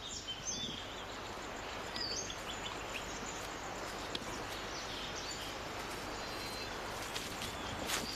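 Forest ambience: a steady hiss of background noise with scattered short, high bird chirps.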